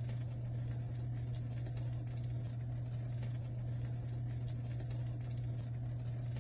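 Oven running with a steady low hum, with faint crackling and bubbling from the peach cobbler baking inside.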